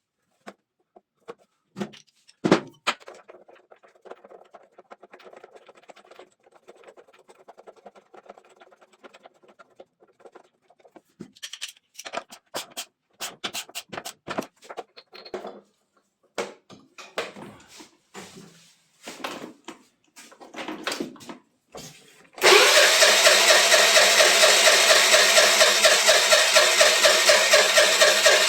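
Scattered clicks and clatter of tools and parts being handled, then a motor starts suddenly about three-quarters of the way in and runs loud and steady with a fast, even pulsing.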